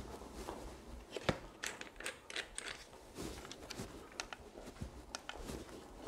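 A person moving about and handling equipment: scattered light clicks and knocks with a few footsteps, a sharper knock about a second in.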